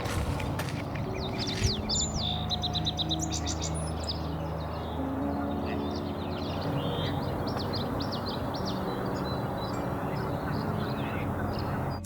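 Several small birds chirping and trilling in a wetland, with quick high notes and a fast run of repeated notes about two to three seconds in, over a steady low background hum.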